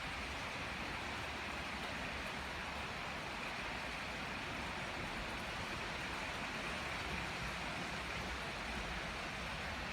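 Strong wind blowing steadily: an even rushing noise with a low rumble underneath.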